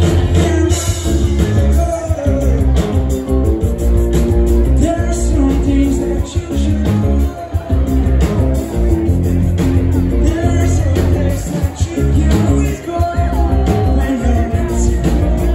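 A live rock band playing loud through a PA, with a heavy, steady bass and drums under sung vocals, heard from within the audience.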